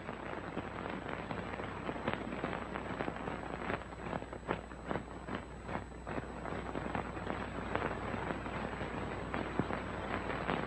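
Crackle and hiss of an old 1930s optical film soundtrack: many irregular clicks and pops over a steady low hum.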